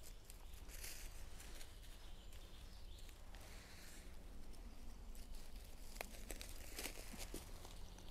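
Faint rustling and crackling of dry leaf litter as gloved hands dig a small mushroom out of the forest floor with a knife, with a few sharp crackles in the second half.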